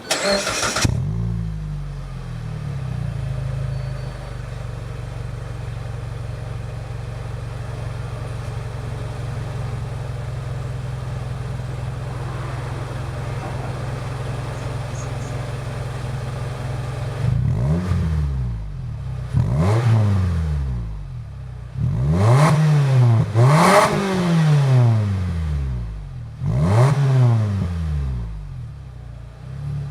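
Mitsubishi Delica D:5's engine heard through a Ganador stainless muffler, starting up with a brief burst and settling into a steady idle. From about two-thirds of the way in it is blipped five times, each rev rising and falling quickly. The muffler's glass-wool packing is burnt out, which makes it loud, and two SFC inner silencers are fitted in the tailpipe.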